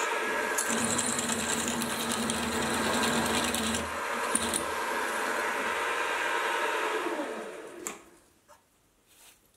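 Mini vertical mill's spindle motor running with a twist drill boring into a steel T-nut blank. The motor winds down, falling in pitch, and stops about eight seconds in.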